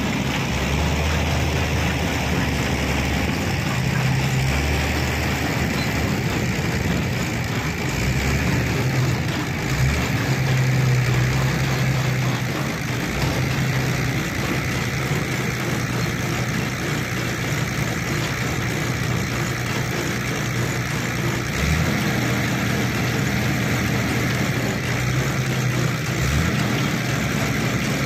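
Tractor diesel engine running at steady revs as it pulls a loader wagon.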